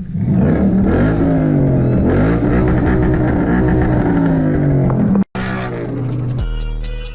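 A muscle car's engine revving up and down several times. It cuts off abruptly about five seconds in, and music with a steady beat starts near the end.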